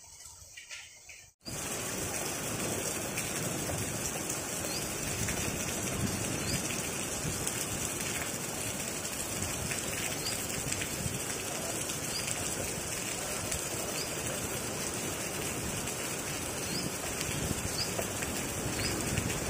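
Steady rain falling, cutting in abruptly about a second and a half in after a quieter opening. It stays a continuous even hiss from then on, with a few faint short high chirps recurring over it.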